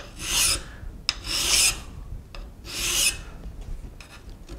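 Hand file rasping across the outside edge of a cast-iron steam-engine box bed casting in three slow strokes about a second and a half apart, deburring its rough, sharp edges.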